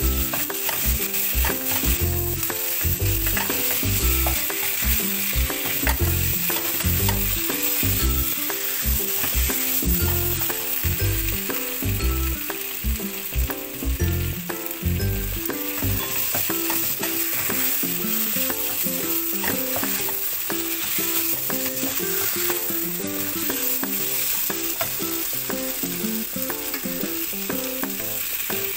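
Chicken pieces sizzling and frying in a nonstick wok. A spatula stirs and scrapes them against the pan with many knocks through the first half, and the stirring stops after about the middle while the sizzling goes on.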